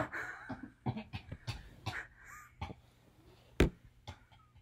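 Scattered taps, knocks and rustles from handling a moving camera and people moving about, with one sharp knock about three and a half seconds in.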